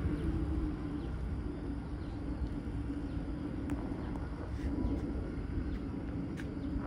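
Distant jet airliner engines: a steady low rumble with a steady hum, and a few faint clicks from about four seconds in.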